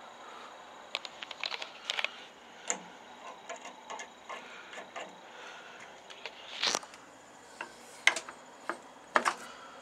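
Irregular clicks and clunks of an EMD diesel locomotive's cab control handles and levers being worked by hand, with the engine shut down. The loudest knocks come about two-thirds of the way through and near the end.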